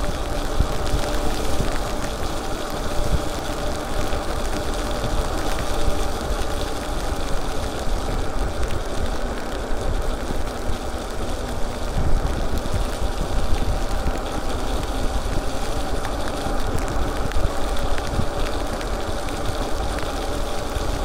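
E-bike riding on a wet road: wind buffeting the handlebar microphone with a heavy rumble, tyre hiss from the wet pavement, and a faint steady whine from the electric motor.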